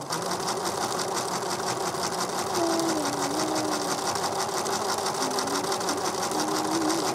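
Computerized sewing machine running steadily, sewing a decorative maple-leaf pattern stitch with a fast, even needle rhythm.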